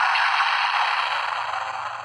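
Legend Hero Changer DX toy's electronic sound effect from its small speaker: a steady, loud rushing hiss with no low end, easing off slightly near the end.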